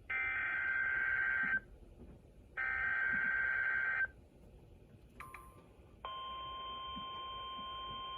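NOAA Weather Radio alert through a weather radio's speaker: two screechy bursts of SAME digital header data, each about a second and a half long with a second's gap between them, a brief click, then about six seconds in the steady 1050 Hz warning alarm tone begins, the signal that a new warning follows.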